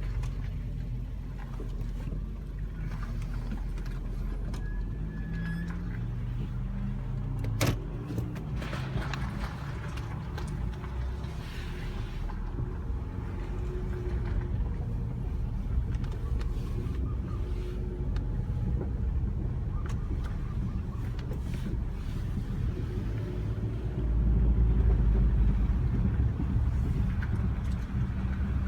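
Nissan Altima being driven: steady low engine and road rumble, with one sharp click about a quarter of the way through and the rumble growing louder for a few seconds near the end.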